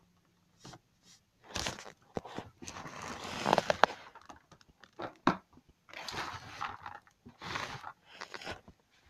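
Irregular rustling and scraping handling noise, a series of short and longer noisy bursts as the phone and toys are moved about.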